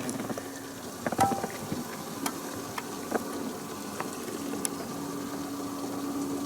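A boat motor's steady low hum cuts out about a second in and comes back a little after halfway. Between, there are scattered small knocks and clicks over a soft watery crackle, with one sharper knock about a second in.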